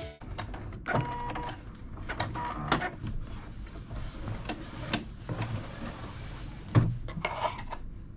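Sewing-machine work: irregular clicks and taps at uneven intervals over a faint low hum, as the last sashing seam of a quilt top is sewn and handled.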